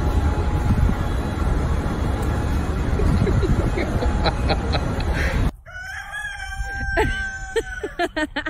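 A loud low rumble, like wind on the microphone, for about five and a half seconds, then an abrupt cut to a rooster crowing: one long call held on a steady pitch, dropping slightly at its end, with a few short clicks around it.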